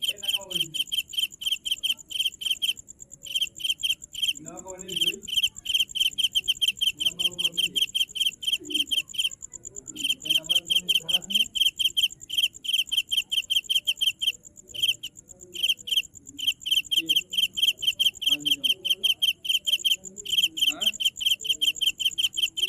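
Steady, fast insect chirping, like a cricket's, pausing briefly now and then, over faint low sounds that glide in pitch.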